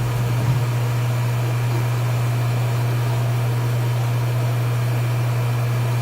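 Steady low hum with no change in pitch or level.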